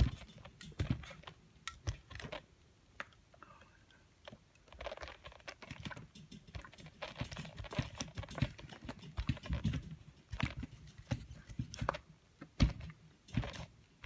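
Irregular clicks and knocks with some papery rustling as a clothes iron is pressed and moved over wax paper on a plastic headphone headband. One sharp knock near the end is the loudest.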